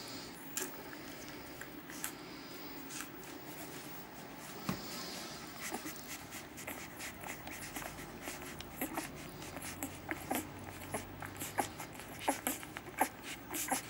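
Newborn puppies suckling at their mother's teats: small wet smacking and clicking sucks, sparse at first and growing denser and louder in the second half.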